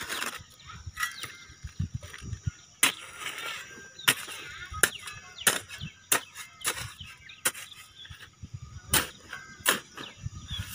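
Short-handled hoe striking and scraping dry, loose soil in a planting hole: a dozen or so sharp, irregular knocks, with birds chirping in the background.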